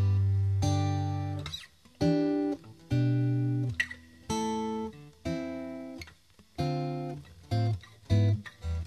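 Background music: plucked acoustic guitar notes and chords, each struck sharply and left to ring and fade.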